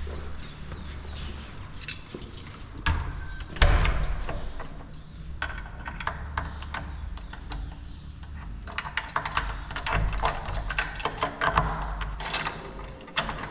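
A door lock and handle being worked: scattered clicks, knocks and rattles of a key and latch, with one loud knock about three and a half seconds in and a quick run of clicking near the end.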